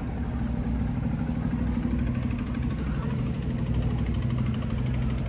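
An engine running steadily at an even low pitch, with no change in speed.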